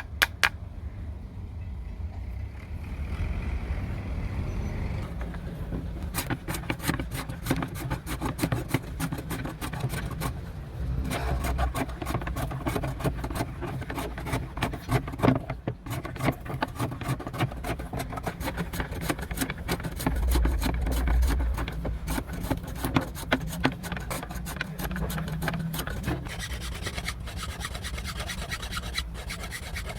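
Continuous rasping and scraping, typical of the hatchet being worked with a file or abrasive during its restoration, with many sharp clicks and a steady low hum underneath.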